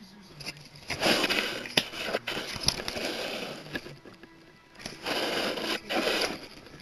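Printed character cards being handled and swapped close to the microphone: rustling and scraping in two stretches, from about a second in and again around five seconds in, with a few sharp clicks.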